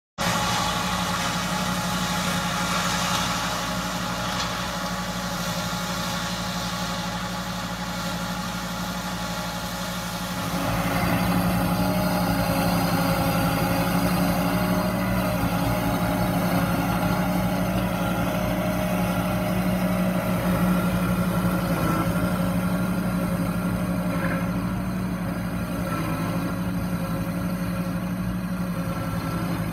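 Subcompact tractor engine running steadily while driving a PTO-driven flail mower cutting grass. About ten seconds in, the sound becomes louder and changes in pitch.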